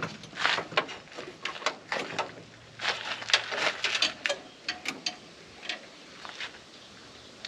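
Irregular clicks, knocks and rustling from hands working at a John Deere 567 round baler, pulling out hay and stalks.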